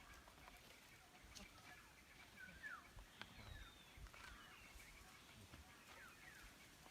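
Near silence with a few faint, short downward chirps of birds and an occasional faint click.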